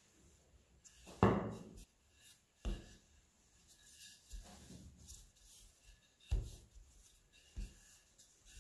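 Wooden rolling pin rolling out soft yeast dough on a floured work surface: soft rubbing as it rolls, broken by several dull knocks, the loudest about a second in.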